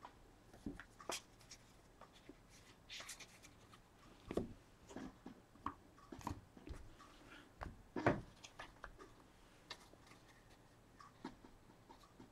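Faint, scattered clicks and rustles of trading cards and their plastic holders being handled.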